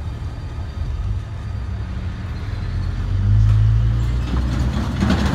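Freight cars, a covered hopper and a tank car, rolling slowly past on jointed track: a steady low rumble of wheels and trucks that swells a little past halfway, with a few sharp knocks or clanks near the end.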